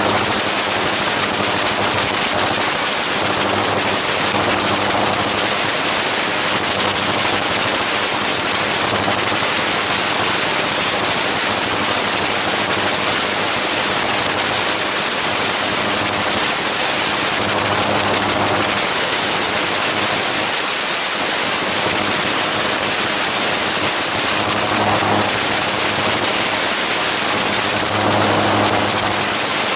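Gyroplane engine and pusher propeller running steadily in cruise flight, a constant hum under heavy rushing wind noise on the microphone.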